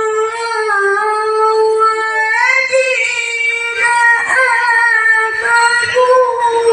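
A boy reciting the Qur'an in the melodic tilawah style into a microphone, holding long high notes with ornamented turns and a step up in pitch partway through.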